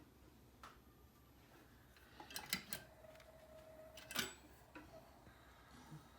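Small metal jeweller's tools and solder being handled on the bench: a few light clicks and taps, with a short cluster about two and a half seconds in and the sharpest click about four seconds in, and a faint brief tone just before it.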